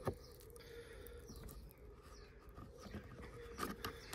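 Faint scrapes and light clicks of a flat-blade screwdriver levering a metal wire retaining clip out of the plastic elbow housing on a Karcher K4 pressure washer, with a couple of slightly louder clicks near the end as the clip comes free.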